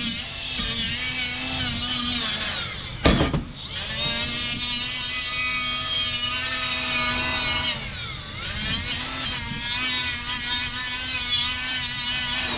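Handheld electric power tool working metal in stretches, its motor pitch wavering under load. It stops briefly with a knock about three seconds in and pauses again about eight seconds in.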